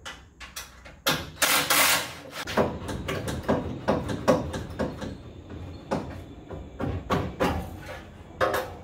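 Irregular metal knocks, clanks and scrapes as a steel crossmember is worked loose from the back of a car body and lifted away. A louder rough rasp comes about a second in and lasts about a second, and there is a sharp knock near the end.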